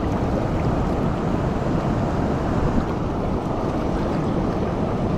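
Steady rushing of water pouring through a spillway, an even noise that keeps up without break.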